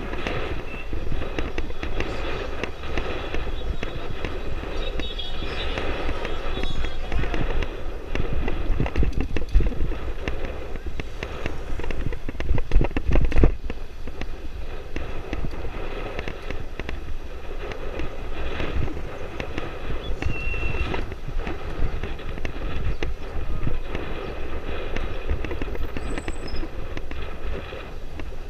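Dirt bike engine running at low speed with a rapid, crackly popping, heard close up from the handlebars. It grows louder for about a second a little before halfway.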